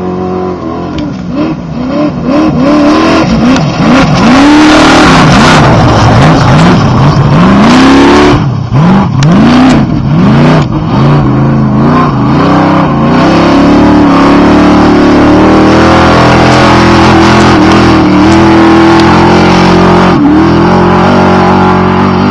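Off-road Trophy Truck's race engine revving hard. For about the first half its pitch swings down and up again and again as it accelerates and shifts; after that it holds a steady, very loud high-rev drone.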